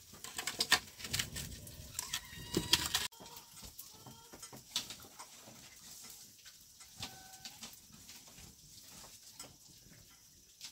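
A chicken clucking now and then, among scattered clicks and knocks. The busier first three seconds end abruptly.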